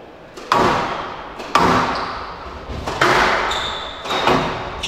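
Squash ball being struck with a racket and hitting the court walls during a rally: four sharp knocks, one every second or so, each echoing in the court.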